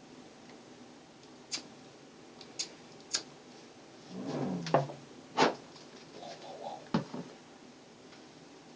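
A lighter clicking about six times at irregular intervals, sharp single clicks, as it is struck to light the butane gas collected in a plastic bottle.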